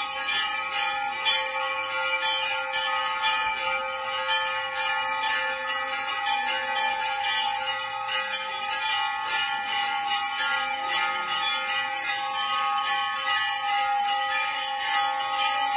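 Temple bells rung rapidly and without pause during an aarti: a dense metallic clatter over steady ringing tones that never die away.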